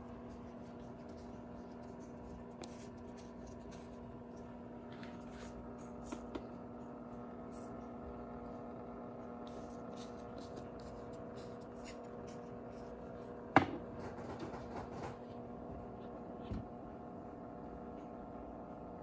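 A steady low electrical hum, with faint clicks and rustles from a plastic fish-food container being handled. One sharp click comes about two-thirds of the way through.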